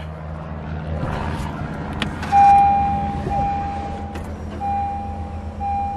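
Newly installed DW65C electric in-tank fuel pump priming when the ignition is switched on: a click about two seconds in, then a loud steady whine over a low hum. The pump is building fuel pressure in the rail.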